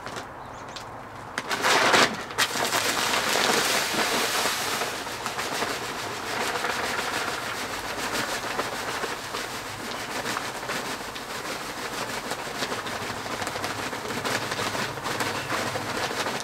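Crushed malt grain pouring from a large sack into a cooler mash tun holding hot strike water: a steady rushing hiss that runs on once the pour begins. A short knock comes about two seconds in, just before it.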